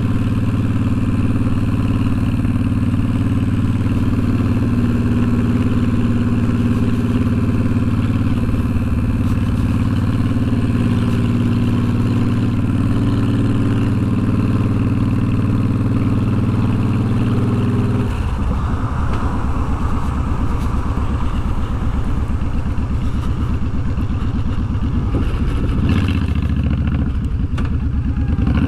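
Honda VTX1300's V-twin engine and exhaust running steadily under way. About two-thirds of the way through the note changes to a lower, choppier beat.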